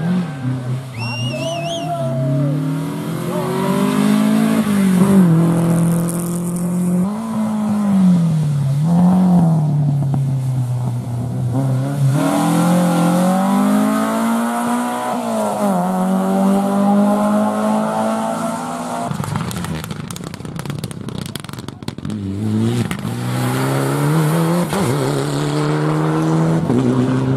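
Rally car engines on a special stage, revving up and down repeatedly with gear changes and lifts off the throttle. About twenty seconds in one car fades with a run of sharp crackles, and another car's engine comes up.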